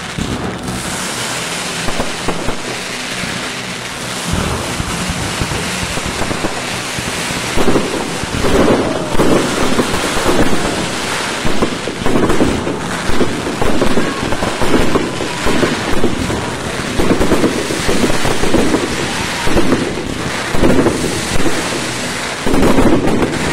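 Fireworks display: aerial shells bursting in a rapid string of booms that come thick and fast from about eight seconds in, over steady background noise.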